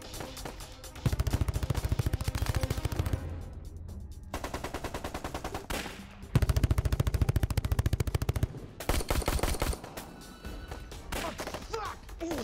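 Rapid bursts of automatic rifle fire, several seconds each with short breaks between them, the loudest starting about a second in and again about six seconds in. Near the end the firing turns into scattered single shots.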